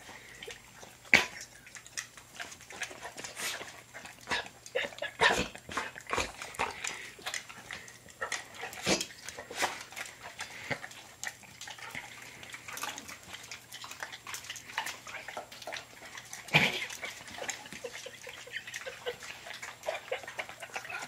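Dog licking and smacking its mouth on sticky peanut butter: a run of irregular wet smacks and clicks, a few of them louder.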